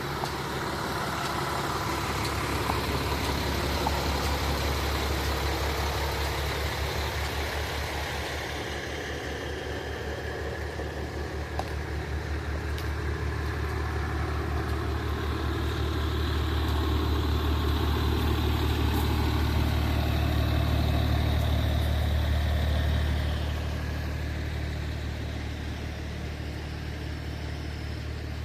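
A large vehicle's engine idling with a steady low rumble. It swells louder about two-thirds of the way through, then eases back down.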